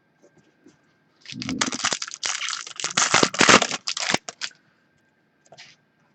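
A trading-card pack's wrapper being torn open and crinkled, a dense crackling that runs for about three seconds from just over a second in.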